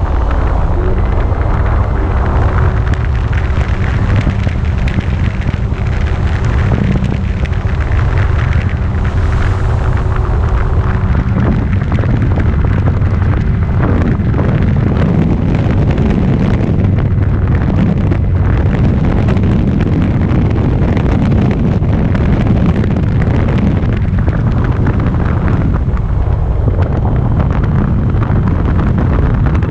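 Strong wind buffeting the microphone in a steady low rumble. A faint, steady motor drone sits under it for the first eleven seconds or so, then stops.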